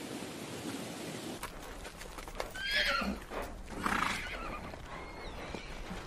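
A horse whinnies twice, about three and four seconds in, each call falling in pitch, over the beat of galloping hooves.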